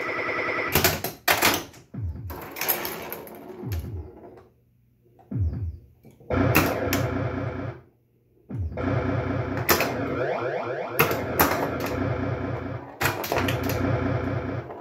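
1979 Williams Gorgar pinball machine in play: electronic game sounds with falling sweeps, over sharp clacks of the flippers, bumpers and targets as the ball scores. The sound drops out briefly twice, about five and about eight seconds in.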